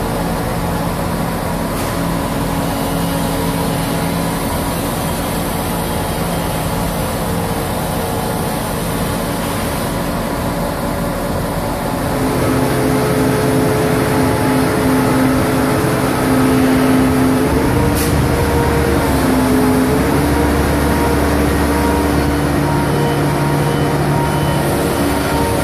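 Engine of a multi-axle modular heavy transporter running steadily as it drives slowly. The hum holds several steady tones that shift pitch in steps, and it grows louder about halfway through.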